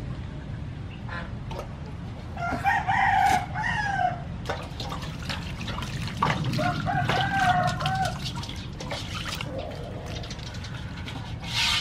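A rooster crows twice, each call lasting about one and a half seconds, the first about two and a half seconds in and the second about six seconds in. Under it, water sloshes and splashes in a metal basin as a plucked chicken is washed by hand.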